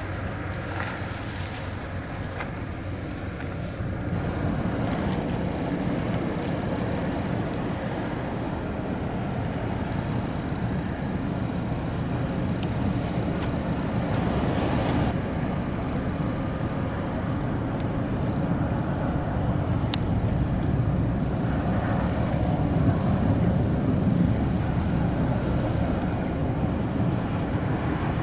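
Passing car ferry's diesel engines running in a steady low rumble, louder from about four seconds in, with wind on the microphone.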